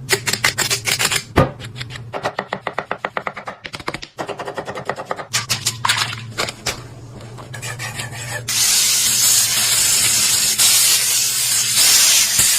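Rapid knife strokes chopping on a cutting board, about five or six a second with short breaks. About eight seconds in, a loud, steady sizzle of food frying in a hot pan takes over.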